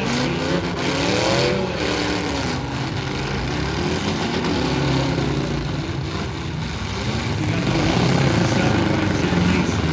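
Several big-car demolition derby engines revving and falling back under load, their pitch rising and dropping repeatedly, with a few sharp knocks in the first seconds.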